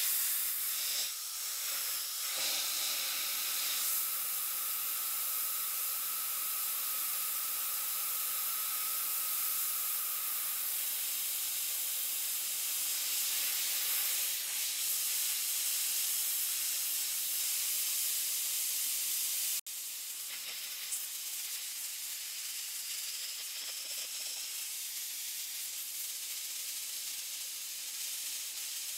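Central Machinery 20-pound portable sandblaster hissing steadily as compressed air and blasting media stream from the hand nozzle onto a rusty steel bar, stripping rust and old paint down to bare metal. A faint whistle sits under the hiss for roughly the first third, and the hiss drops a little in level about two-thirds of the way through.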